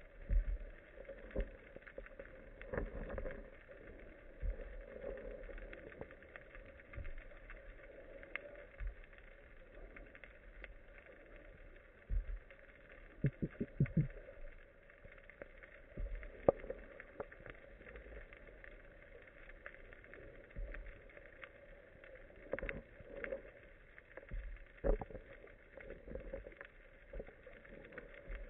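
Underwater sound picked up through a camera's waterproof housing mounted on a speargun: a steady hiss with irregular sharp clicks and low muffled knocks, including a quick run of four clicks about halfway through.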